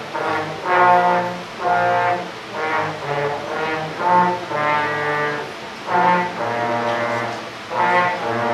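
Trombone section of a school band playing a tune: a series of held brass notes in phrases with short breaks between them.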